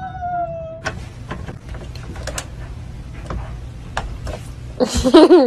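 A husky's drawn-out vocal call that slides slightly down in pitch, lasting about a second. It is followed by a few seconds of scattered light clicks and taps over a low hum. Near the end comes a loud, wavering, pitched call.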